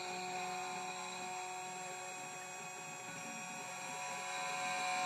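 Spindle of a CNC key cutting machine running with a steady, even hum of several held tones as its 0.9 mm cutter mills a snake key blank. It grows slightly louder near the end.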